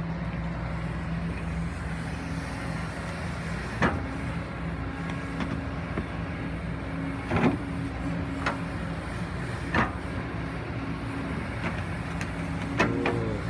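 Kobelco SK140-8 excavator's diesel engine running steadily, with a few sharp knocks or cracks about 4, 7.5, 8.5 and 10 seconds in while it works at felling trees.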